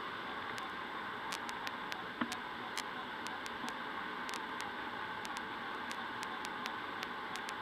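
Steady rush of air over a PIK-20B sailplane, heard inside the closed cockpit in gliding flight, with irregular light ticks and clicks over it.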